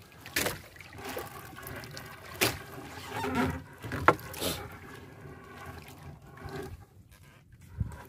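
Wet triple-layer shrimp net (trammel net) being hauled hand over hand over the side of a small fishing boat, water dripping and trickling off it, with several sharp knocks against the boat, the loudest about four seconds in.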